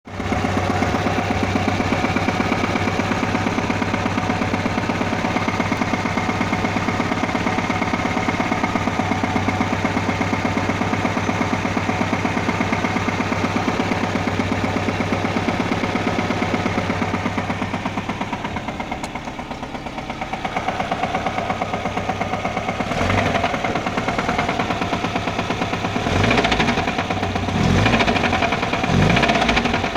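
VAZ classic (Lada) four-cylinder engine idling with a steady, rapid knock that the owner places at the top of the engine, where a new camshaft has just been fitted. Near the end the revs are blipped up several times.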